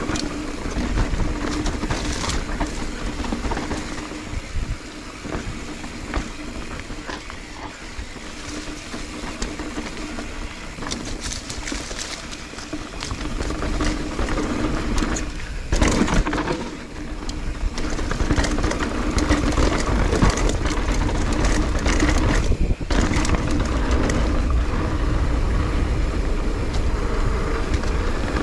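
Transition full-suspension mountain bike descending a leaf-covered dirt and rock singletrack: tyres rolling and crunching over the ground, the bike rattling over bumps, and wind rumbling on the microphone. The noise grows louder from about halfway through.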